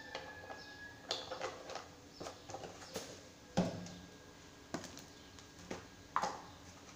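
Scattered light knocks and clicks of kitchen items being handled on a countertop, as a plastic sugar container is picked up; the loudest knocks come about three and a half and six seconds in.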